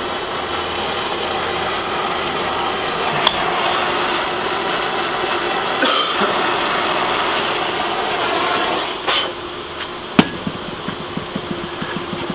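A torch flame hisses steadily while heating an exhaust silencer to free its packed core. It cuts out about nine seconds in, followed by one sharp knock and a run of lighter taps on the metal.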